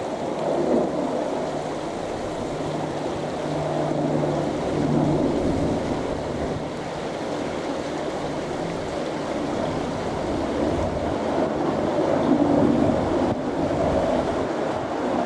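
AgustaWestland Merlin helicopter flying past, a steady noise of rotors and engines that grows a little louder in the second half as it draws nearer.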